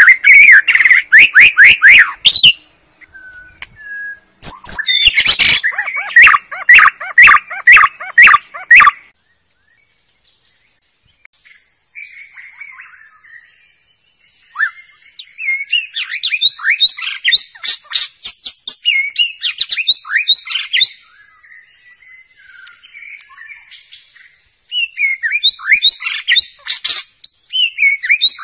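White-rumped shama singing loud, rapid runs of sweeping whistled notes, in bouts of several seconds broken by pauses. A thin steady high tone runs through the longest pause in the middle.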